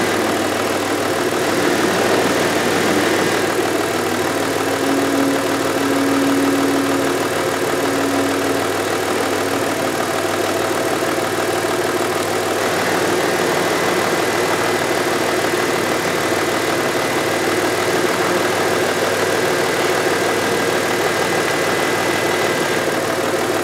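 2000 Audi A6's 2.8-litre V6 engine running steadily.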